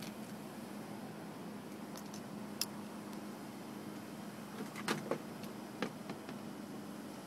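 Several short, sharp clicks and knocks of fire gear being handled and fastened, over a steady low hum.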